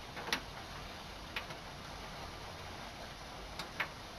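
Faint steady hiss with a few sharp, irregularly spaced ticks: one just after the start, one about a second and a half in, and a close pair near the end.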